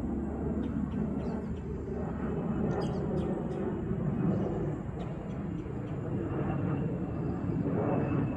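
Jet engine noise from a twin-engine airliner flying high overhead: a steady low rumble.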